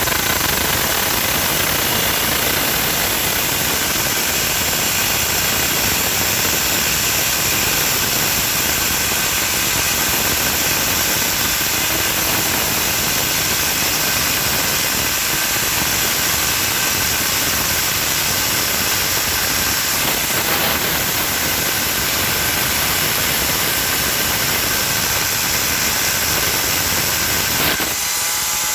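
Electric angle grinder running continuously as it cuts through a toilet's metal floor bolt, a loud steady grinding with a high whine. Near the end the deeper part of the sound drops away.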